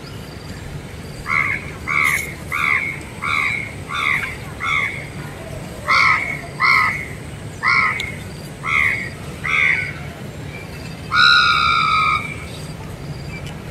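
A bird calling outdoors: a run of about eleven short, evenly spaced calls with a brief pause in the middle, then one longer held call near the end.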